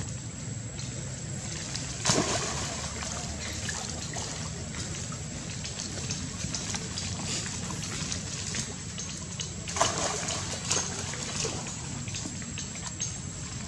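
Water splashing and sloshing as young monkeys swim and dive in a pond, with sharper splashes about two seconds in and again near ten seconds.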